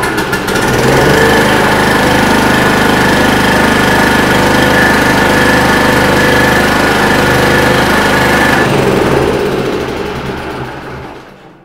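Small portable petrol generator engine started and running steadily for about eight seconds, then shut off and running down over the next few seconds. The generator runs but gives no output voltage, because a broken carbon brush no longer touches the alternator's slip ring.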